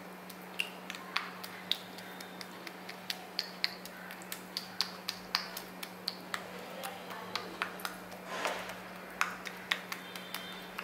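Metal spoon clinking and tapping against a metal plate while pressing and smoothing halwa: a run of irregular sharp clicks, with a softer scraping sound about eight seconds in. A steady low hum runs underneath.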